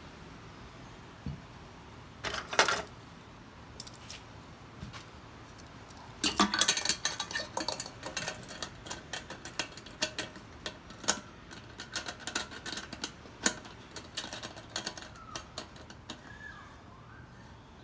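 Stainless steel still parts clanking and clinking against each other as the column is fitted onto the pot lid: one sharp clank about two and a half seconds in, a burst of rattling around six seconds, then scattered clicks and taps.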